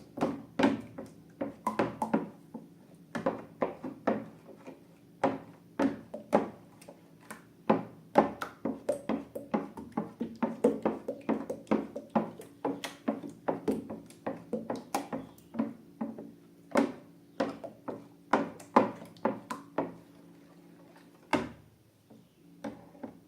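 Irregular clicks, taps and light knocks from hands working slime and balloons, often several a second, over a faint steady hum; they thin out near the end.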